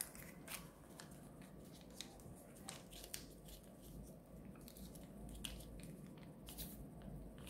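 Faint rustling and crinkling of folded colored paper being handled and pressed flat by hand on a tabletop, with scattered small crisp clicks.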